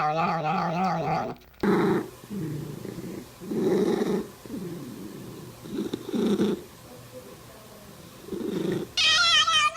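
Cats vocalising: a wavering, drawn-out meow that breaks off about a second in, then low rumbling purr-like bursts at uneven intervals, and a high wavering meow near the end.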